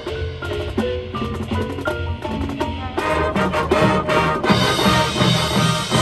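High school marching band playing its field show. It opens on a thinner passage carried by the front ensemble's mallet percussion, and the full band and drums come back in about three seconds in with a steady drum pulse.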